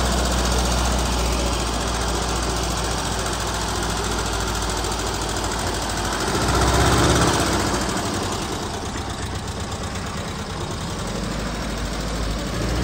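A Volkswagen Combi van's engine idles steadily, then revs up about six to seven seconds in as the van pulls away. Its sound drops off as it drives off.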